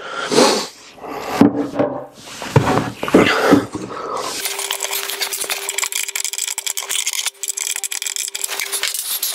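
Hands rubbing and knocking on a laminate worktop and the cabinet beneath it as the joint between the tops is worked flat. About four seconds in, this gives way abruptly to a steady hum at one pitch over a fast, fine crackle.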